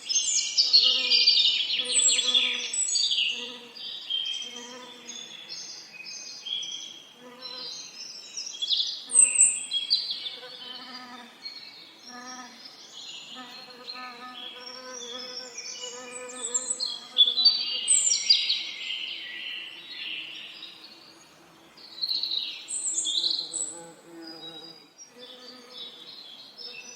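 Several birds singing at once, a dense run of quick chirps, trills and whistled phrases. Under them, bees buzz with a low hum that comes and goes every second or so.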